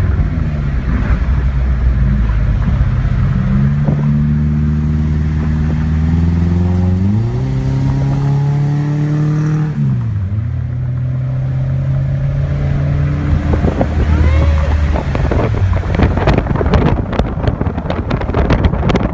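Subaru Forester flat-four boxer engine through a Spec-D cat-back exhaust with resonator, pulling up through the revs twice in steps, holding, then dropping off sharply about ten seconds in and running steadily. Near the end, rough wind buffeting on the microphone takes over.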